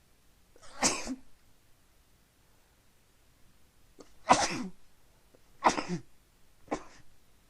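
A person sneezing into a handkerchief, four sneezes: one about a second in, then three in quick succession in the second half.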